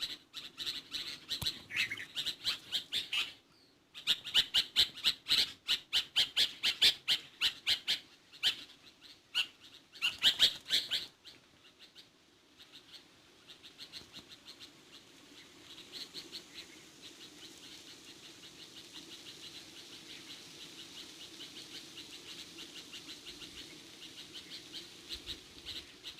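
Birds chirping in fast, rapid-fire runs of short high notes, loud for roughly the first ten seconds with a brief pause, then continuing as softer, steady chattering.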